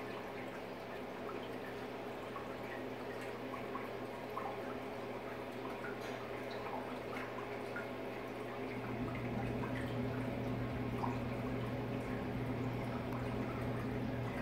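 Aquarium water trickling and dripping with small scattered ticks, over a steady low electrical hum that gets louder about nine seconds in.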